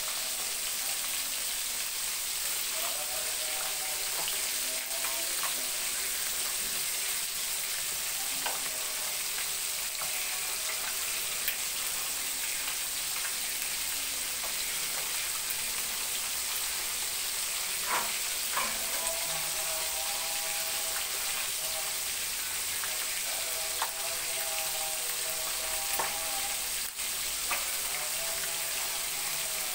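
Small whole fish deep-frying in hot oil in a wok: a steady sizzle, with a few sharp pops of spitting oil.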